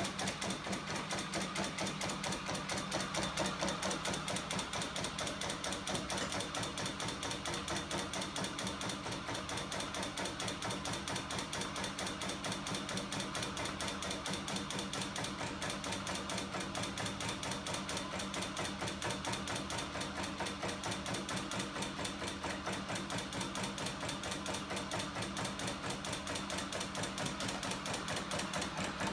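A homemade aluminium flywheel-and-crank machine driven by an electric motor, running fast. Its linkages make a rapid, even clatter over a steady hum.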